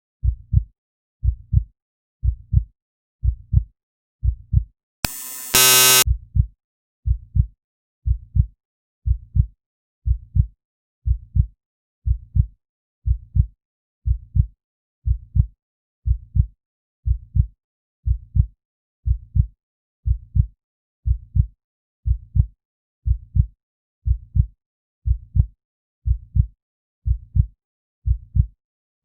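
Heartbeat sound effect: a steady lub-dub, about one beat a second. About five seconds in, a brief loud buzz cuts across it for roughly a second.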